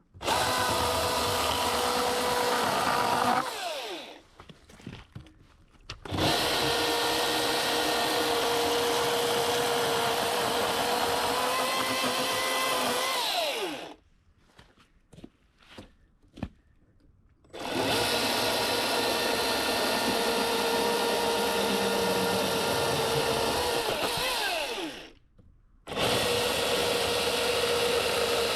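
Milwaukee M18 Fuel battery chainsaw cutting a beech trunk in four runs of several seconds each, its motor whine falling away as it winds down at the end of each cut. Small clicks and knocks come in the pauses.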